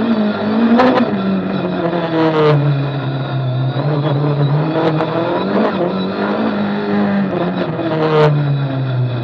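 Renault Clio Maxi rally car's 2.0-litre engine heard from inside the cabin, revving up and dropping back several times as it shifts gears, slowing for a bend and then accelerating. A few short sharp cracks come with some of the shifts.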